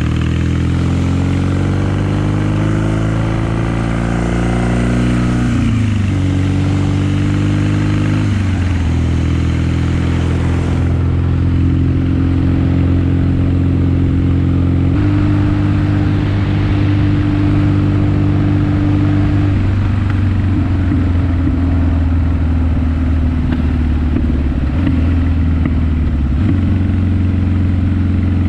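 Kawasaki KZ750 motorcycle engine under way, rising in pitch as it accelerates and dropping twice at gear changes in the first nine seconds or so, then running at a steady cruise with small rises and dips in pitch.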